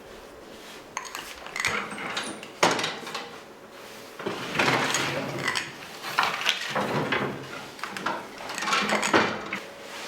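Metal bakery equipment clattering and scraping in irregular bursts, such as trays or oven tools being handled.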